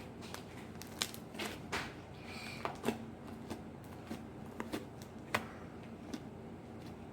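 Homemade slime being squeezed and worked by hand, giving irregular small clicks, pops and crackles.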